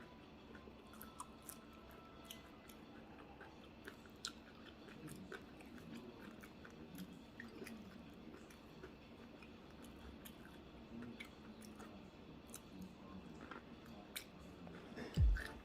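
A person chewing and biting crispy fried egg rolls, with soft crunches and small mouth clicks scattered throughout. Near the end, a deep, thumping bass beat of music starts.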